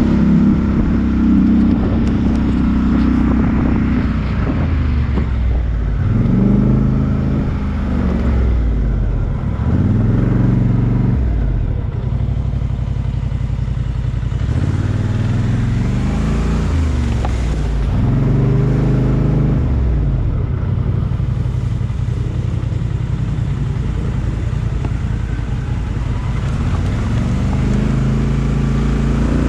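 Off-road 4x4 vehicle's engine revving in repeated throttle bursts, about five rises and falls in pitch over the first twenty seconds, then running more steadily, as it works up a step obstacle.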